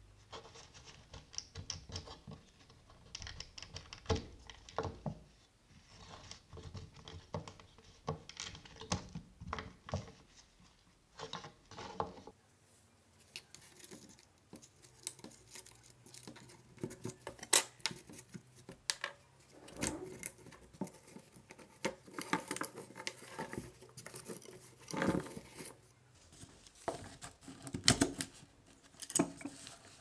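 Handling noise from a cordless drill being taken apart by gloved hands: irregular clicks, scrapes and small knocks of plastic and metal parts as the switch wiring is worked loose and the motor is pulled from the gearbox. A few sharper clicks come in the second half.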